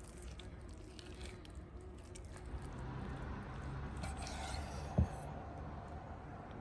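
Fingers working the membrane off a raw lamb testicle, then a 15 cm Dahra chef's knife slicing through it on a wooden cutting board with a short scraping hiss. A single sharp knock of the blade on the board comes about five seconds in.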